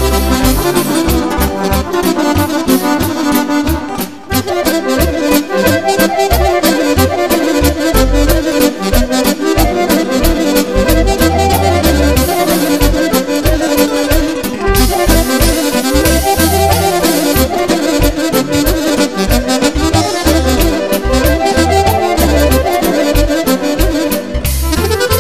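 Accordion-led Serbian folk music with a steady bass beat, which dips briefly about four seconds in.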